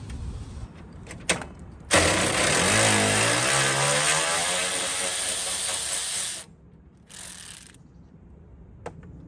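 Handheld power tool running for about four and a half seconds, with a hissing sound and a falling pitch as it backs out a stuck 10 mm bolt. It is followed by a short second blip of hiss.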